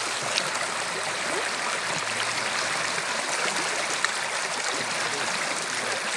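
Shallow, fast creek rushing and splashing over rocks: a steady rush of water, with a couple of small sharp clicks, one near the start and one about four seconds in.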